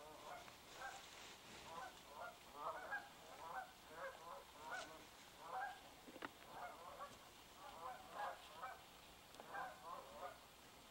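A flock of Canada geese honking, with many calls following one another every half second or so and often overlapping.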